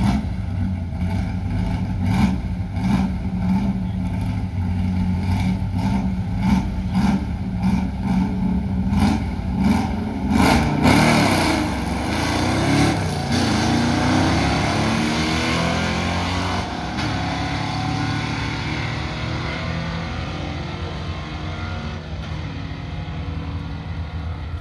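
Two Ford FE V8 drag cars idling lumpy at the starting line, then launching about eleven seconds in and accelerating hard down the strip. The engine note climbs and drops through the gear changes and fades away into the distance.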